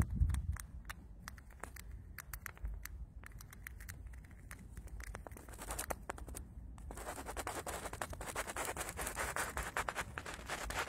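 Striped field mouse gnawing at the shell of a peanut held in the fingers: a string of dry scratching clicks that turns into a fast, dense run about seven seconds in.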